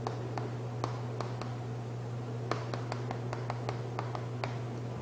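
Chalk on a chalkboard during handwriting: sharp clicks and taps at an irregular pace as each stroke is laid down, over a steady low hum.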